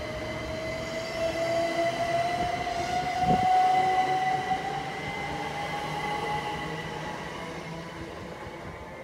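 Great Western Railway electric multiple unit accelerating away, its traction motors whining and rising steadily in pitch over wheel-and-rail rumble. There is a dull thud about three seconds in, and the sound fades as the train draws off.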